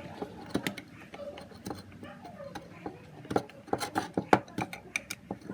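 Irregular light clicks and knocks of small hard objects being handled, thicker in the second half, with a few sharper taps between about three and four and a half seconds in.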